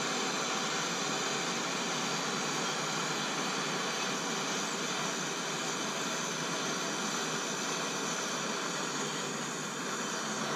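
Handheld gas torch burning with a steady hiss as it heats corrosion-seized bolts on an air horn's chamber to free them.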